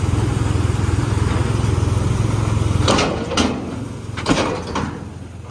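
Tractor engine running steadily, then dropping away about three seconds in, followed by a few sharp knocks.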